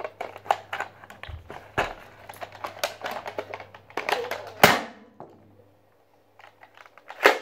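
Plastic clicking and clacking of a Nerf Elite Disruptor blaster as it is handled and cocked, a quick run of small clicks through the first few seconds, then two louder clacks, one about four and a half seconds in and one near the end.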